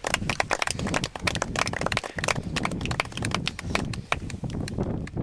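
Stones clicking and clattering against each other and on gravel as rocks are handled and set in place, a quick irregular run of many hard knocks.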